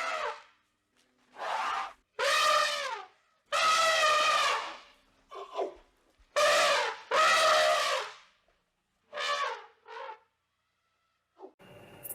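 An animal calling over and over: about nine short pitched calls, each under a second, with pauses between and some higher and shorter than others. Just before the end a steady low hum sets in.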